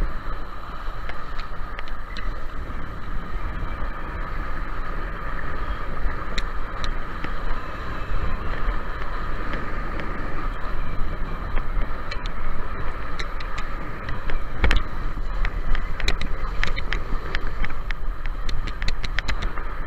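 Kiteboard planing across lake water: a steady rush of water and spray, with wind buffeting the microphone. Sharp ticks of spray hitting the camera come once about 15 seconds in and several more near the end.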